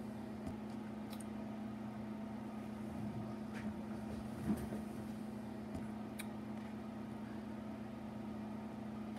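Quiet room tone: a steady low hum with a few faint clicks scattered through it.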